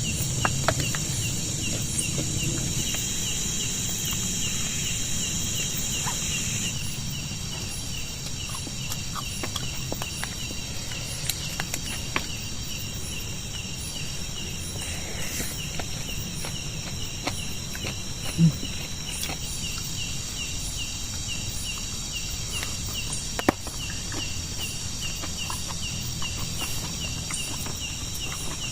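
Crickets and other insects chirping steadily, a rapid pulsing chirp under a high continuous buzz, with a few sharp clicks and knocks scattered through.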